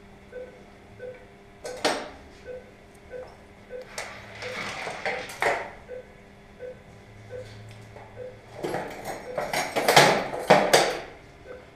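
A patient monitor beeps steadily, a little under two beeps a second, pacing the anaesthetised dog's pulse. Over it, steel surgical instruments clink and rattle, with the loudest clatter near the end.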